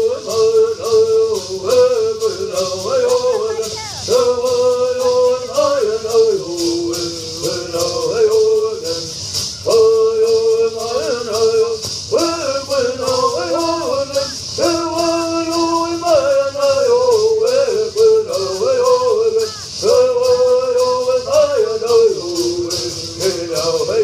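Southern California Native American bird singing: a group of men sing in unison in short, stepped, repeating phrases, while hand rattles are shaken in a fast steady rhythm, heard through a PA loudspeaker.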